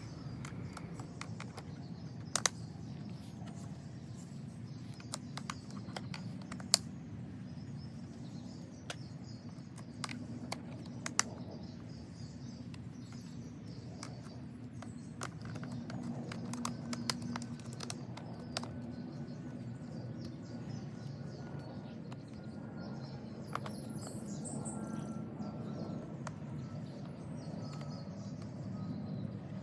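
Faint outdoor ambience with birds chirping over a low steady hum, broken by a few sharp clicks and knocks of hard plastic plant supports being handled and wedged into a plastic planter.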